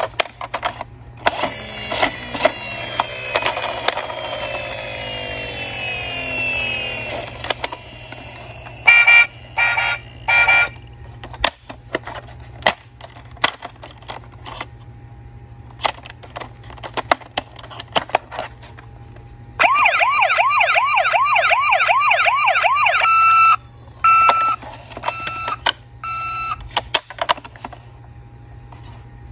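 Electronic siren sounds from battery-powered toy emergency vehicles, set off by button presses. A few seconds of sweeping siren tones, then a burst of short beeps, and later a fast warbling yelp siren of about three and a half seconds that ends in a few more beeps. Clicks from the plastic toys being handled come in between.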